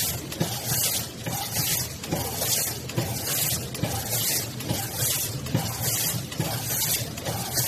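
Premade-pouch vacuum packing machine running, with a hiss of air about one and a half times a second over a steady machine hum.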